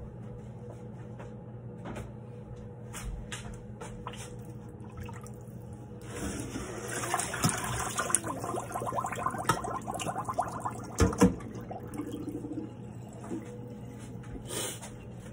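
Water pouring and splashing into a stainless-steel kitchen sink as rinse water is tipped out of a bowl holding a whole raw chicken, starting about six seconds in, with faint handling clicks before it. Two sharp knocks near the end of the pouring, over a steady low hum.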